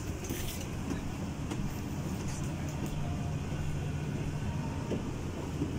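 Steady low mechanical hum inside a parked airliner's cabin, several low pitches held without change, with a few faint clicks near the start.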